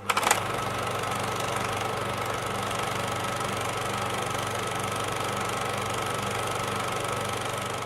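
A machine running steadily, with a low even hum under a hiss, starting abruptly with a few clicks.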